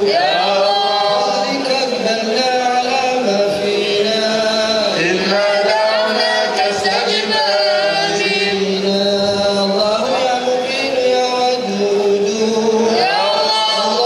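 A man's voice chanting Arabic devotional verse, holding long notes that slide and waver in pitch.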